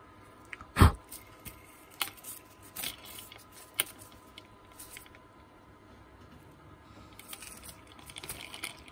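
Scattered clicks and taps of small parts and hand tools being handled during an angle grinder repair, with one sharp knock about a second in and a quick run of rattling clicks near the end.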